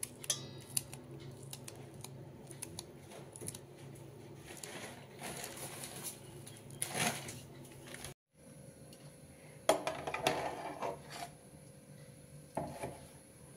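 Small kitchen knife cutting through a green chilli held between the fingers, a run of light clicks as the pieces drop into a steel bowl of chopped onion. After a short break, a few knocks and clinks of metal cookware as oil goes into an aluminium kadhai.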